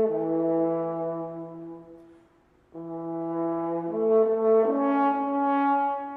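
Solo French horn playing held notes: a low note fades away about two seconds in, and after a short pause the horn comes back in with a phrase of sustained notes stepping upward.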